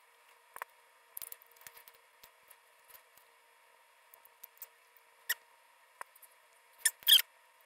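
Close-miked chewing of grilled meat bitten off a skewer: scattered soft wet mouth clicks and smacks, with two louder bursts about seven seconds in.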